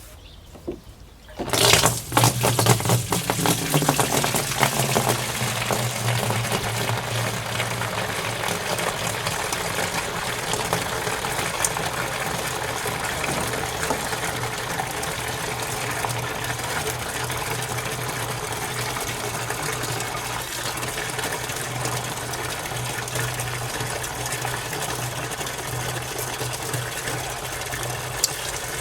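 Homemade wine being racked into a barrel: liquid pouring in steadily, with a steady low hum underneath, starting about a second and a half in.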